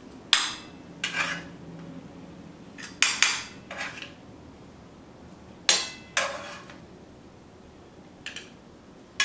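A metal spoon clinking and scraping against a frying pan and a plate as chicken drumsticks are served out: a string of about eight sharp, irregularly spaced clinks with a short ring after each.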